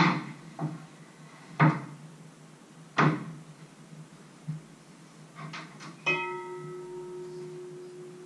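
Kitchen work sounds: a few sharp knocks and clatters of utensils, then about six seconds in a metal utensil strikes metal kitchenware, which keeps ringing with a clear tone that slowly fades.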